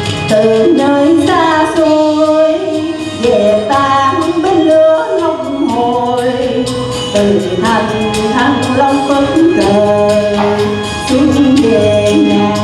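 A Vietnamese song sung by a woman and a man over musical accompaniment, the voice gliding between held notes.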